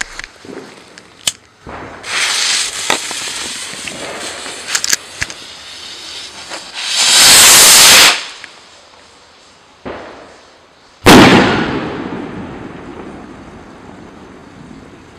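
Wolff 'Space Invasion' skyrocket (36.5 g powder, category 2): rushing hisses of the burning rocket, the loudest a harsh whoosh lasting about a second some seven seconds in, then about three seconds later a single loud bang as the rocket bursts, its echo rolling away slowly.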